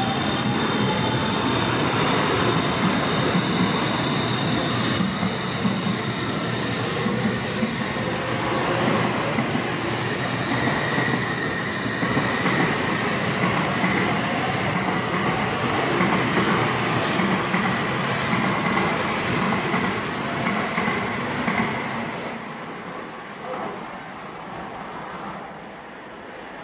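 N700S Shinkansen train accelerating away from a standstill, its electric traction motors and inverters giving a whine that climbs in pitch over the rumble of wheels on rail. The sound fades from about 22 seconds in as the last car pulls away.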